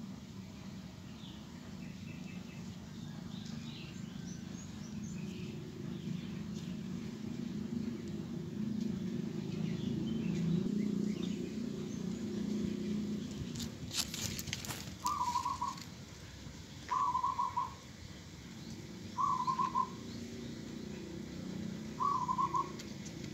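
A bird repeats a short warbling call four times, about every two seconds, in the second half. It sounds over a steady low outdoor rumble that swells midway, with faint high chirps early on and a few sharp clicks just before the calls.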